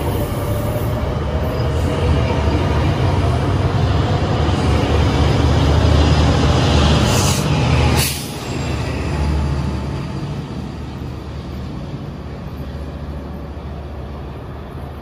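Metrolink bilevel passenger cars rolling past close by, a steady low rumble of steel wheels on rail. About eight seconds in there is a short hiss and then a sharp clank as the last car goes by, and after that the rumble fades as the train moves away.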